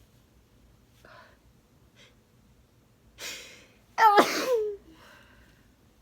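A person sneezing into a tissue: a few faint short breaths, a quick inhale about three seconds in, then one loud sneeze with a voiced cry that falls in pitch as it trails off.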